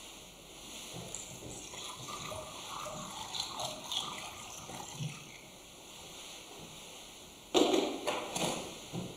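Faint clinks and rustles of the chalice and altar vessels being handled, then a brief, loud splashing rush about seven and a half seconds in: water being poured into the chalice to purify it after Communion.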